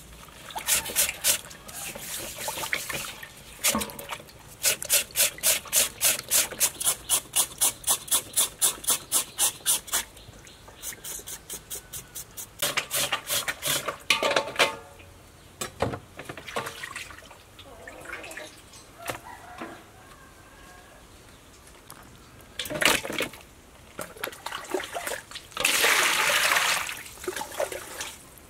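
Knife blade scraping salted pork skin in quick, even strokes, about three a second, then hands working the meat in a metal basin of water, splashing steadily near the end.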